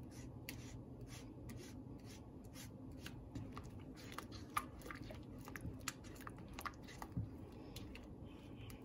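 A spatula stirring and scraping a thickening flour-and-milk white sauce in a nonstick frying pan: faint wet stirring with scattered soft ticks and pops.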